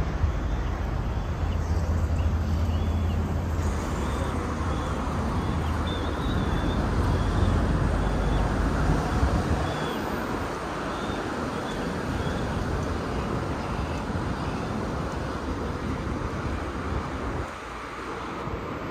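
City road traffic passing along a riverside road: a steady wash of engine and tyre noise, with a low engine rumble that eases off about halfway through. Faint short high chirps come and go over it.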